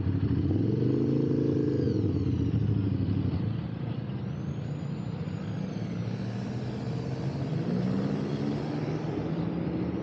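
Motorcycle engine running at low speed, its pitch rising and falling about a second in, then settling lower and steadier.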